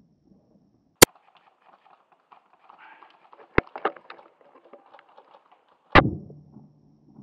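Airsoft sniper rifle firing a single loud shot about six seconds in, a sudden crack followed by a short low hum as it dies away. Before it come a sharp click about a second in, then faint rustling with two sharper clicks.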